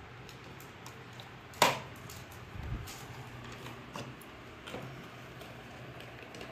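Cardboard gift boxes being handled: one sharp knock about a second and a half in, then scattered light clicks and taps.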